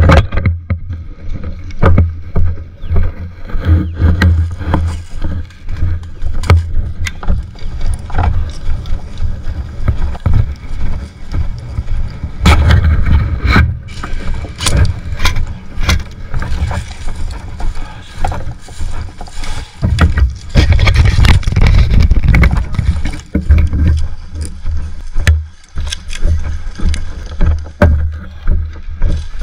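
Wind buffeting a gun-mounted action camera's microphone, a heavy uneven rumble, with many scattered sharp clicks and knocks from the rifle and gear being handled as the player moves.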